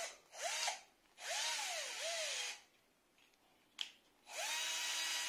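Bosch 12-volt cordless drill-driver's motor whirring in short bursts while a screwdriver bit is fitted in its chuck. First comes a brief blip, then a longer run that speeds up and slows down twice. After a pause and a click, a steady run of about two seconds starts near the end.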